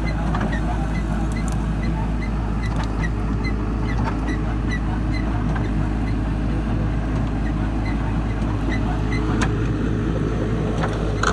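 Diesel engine of a horizontal directional drilling rig running steadily, with a regular light ticking over it and a single sharp clank about nine seconds in.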